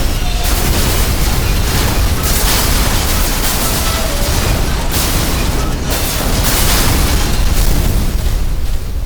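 Sound effect of an underground subway train disaster: a loud, continuous rumbling crash with short metallic screeches and repeated surges of debris noise.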